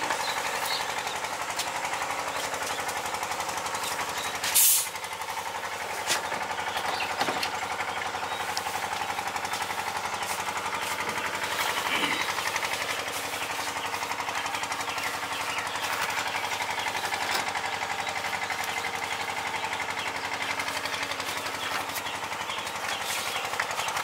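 A small engine running steadily with a fast, even pulse. A short, loud knock about four and a half seconds in.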